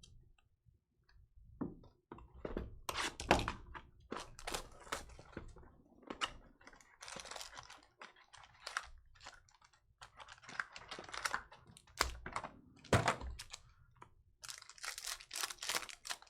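Trading cards and packs being handled: irregular clicks, taps and short rustling slides of card stock and wrapper.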